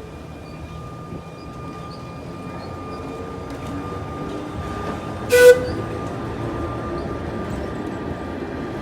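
A train running close by, its rumble slowly growing louder, with one short, loud horn toot about five seconds in.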